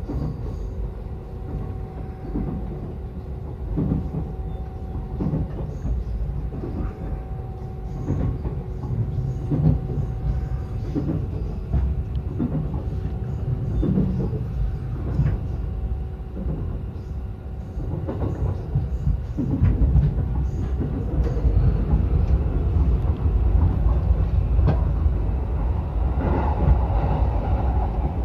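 Electric commuter train running on the Yokosuka Line: a steady low rumble with wheels clicking over rail joints at regular intervals, and a steady motor hum that fades out about halfway through. The running noise gets louder near the end.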